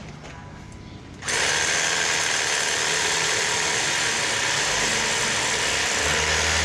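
An electric knife switches on about a second in and runs steadily, its motor and reciprocating blades slicing through a loaf of bread.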